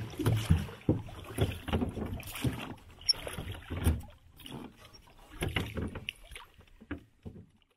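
Oars working an aluminum rowboat: irregular knocks and low thumps of the oars and hull, with light water noise, thinning out and fading away near the end.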